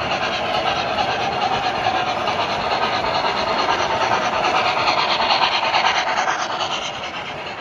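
O scale model steam locomotive running on three-rail track: steady rapid chuffing from its onboard sound system over the rumble of the wheels on the rails. It grows louder as the engine passes close, about five seconds in, then eases as the freight cars roll by.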